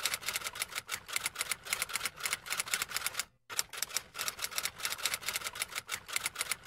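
Typewriter-style typing sound effect: rapid clicking keystrokes timed to on-screen text being written out letter by letter. The clicks break off for a moment about three seconds in, then start again.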